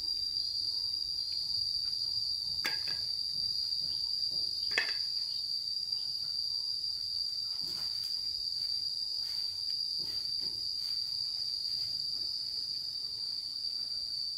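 Insects, crickets by the sound of it, keep up a steady, unbroken high trill. Two short, high chirps that slide downward stand out about three and five seconds in.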